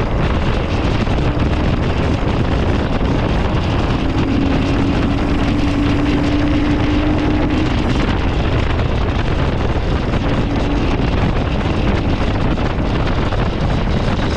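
Royal Enfield Himalayan 411's single-cylinder engine running while the bike is ridden, half buried under heavy wind buffeting on the microphone. A steadier engine note stands out for a few seconds around the middle.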